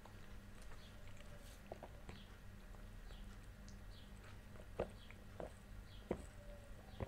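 Faint wet mouth clicks, then gulps of a drink swallowed from a glass: four distinct swallows, a little under a second apart, in the second half.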